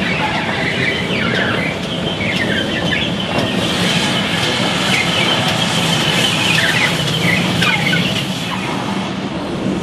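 Steam-hauled train rolling slowly into a station on a curve: a steady low rumble with repeated short, high squeaks and chirps over it.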